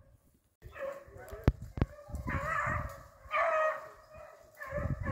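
A pack of beagles baying on a rabbit's track, several drawn-out bays rising and falling. About a second and a half in come two sharp cracks in quick succession.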